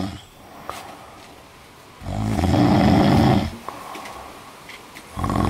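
A man snoring in deep sleep. There are two long snores: one begins about two seconds in and lasts about a second and a half, and the next starts near the end.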